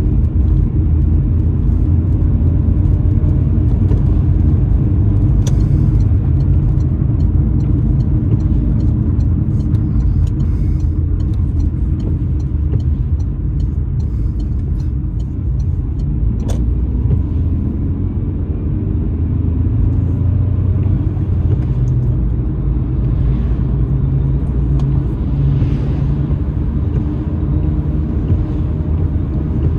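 Car driving on a wet road, heard from inside the cabin: a steady low engine and road rumble, with a few faint clicks.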